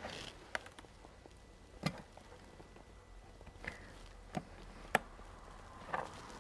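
Snap-off utility knife blade cutting and prying at the plastic housing of a Samsung laser toner cartridge: about six scattered sharp clicks and taps, the loudest about five seconds in.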